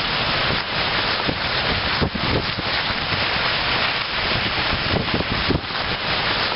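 Strong storm wind blowing across the microphone: a loud, steady rush of wind noise broken by frequent sharp buffeting pops.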